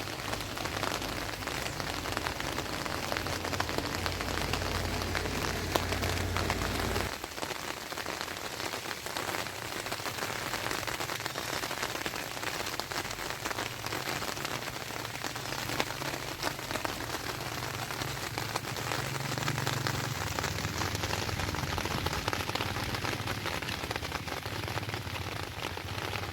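Steady rain falling, a dense even patter of drops. A low rumble sits under it for the first seven seconds or so and stops abruptly.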